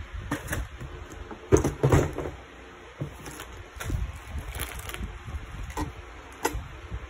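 Handling noise from unboxing a plastic model kit: a cardboard box lid lifted off, then the paper instruction manual and plastic-bagged parts runners picked up and moved, giving irregular rustling, scraping and light knocks. The loudest scrape comes about one and a half to two seconds in.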